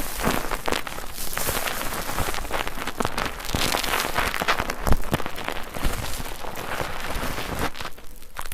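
Bar soap being lathered in a foaming net with water: a wet crackling full of small popping clicks as the lather is worked and squeezed.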